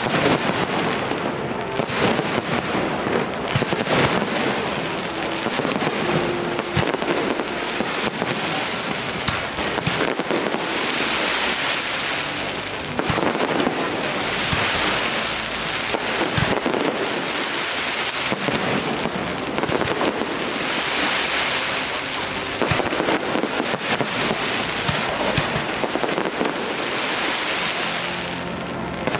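A dense fireworks display going off without pause: a steady barrage of bangs under a continuous crackle. The crackle swells several times, around a third of the way in, near the middle, about two-thirds through and near the end.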